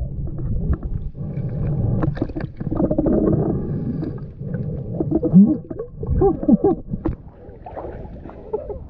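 Muffled underwater water movement while snorkelling, a low, uneven rumbling wash, with a few short squeals that rise and fall between about five and seven seconds in.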